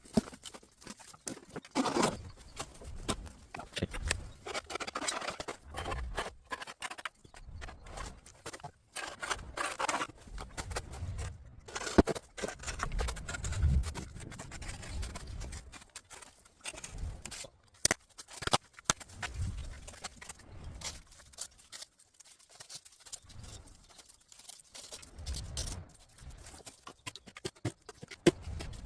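Bamboo branches and leaves rustling and scraping as cut bamboo is handled and cleared, with irregular sharp snaps and knocks.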